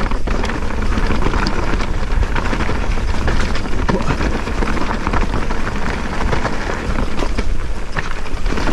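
Mountain bike rattling down a rough, stony track: tyres crunching over loose rock with many quick sharp knocks, over a steady low rumble of wind on the helmet-mounted microphone.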